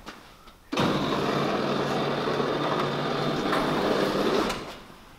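Electric garage door motor running, starting suddenly about a second in and running steadily with a low hum for nearly four seconds before winding down.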